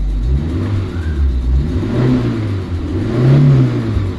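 Maruti Suzuki Eeco's four-cylinder petrol engine revved up and down about four times. It runs with no clutch grinding, just after the clutch plate, pressure plate and release bearing were replaced.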